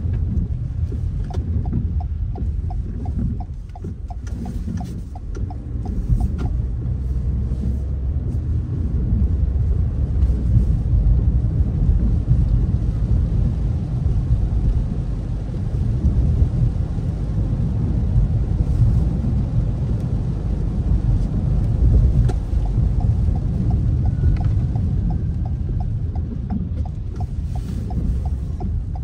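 Inside a car's cabin on a wet road: a steady low rumble of engine and tyres on wet pavement. The turn-signal indicator ticks about three times a second for a few seconds near the start and again near the end.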